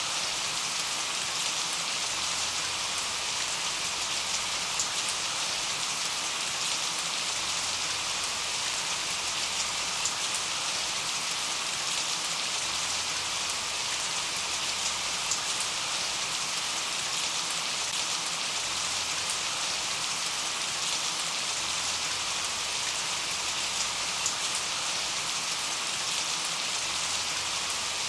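Steady rain falling and pattering on a surface, an even hiss of many drops with small scattered ticks.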